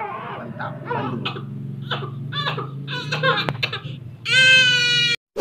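A young child crying and whining in short broken bursts, then a long high wail about four seconds in. It cuts off abruptly, and a bell-like ding sounds right at the end.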